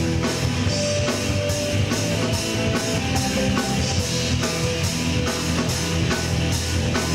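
Live rock band playing an instrumental passage between verses: electric guitar over a drum kit keeping a steady beat.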